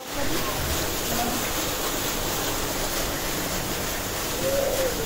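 Restaurant dining-room ambience: a steady rushing background noise with faint, indistinct voices now and then.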